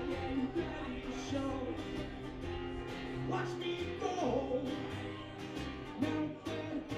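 Acoustic folk song played live: a steel-string acoustic guitar strummed over an upright bass, with a voice singing.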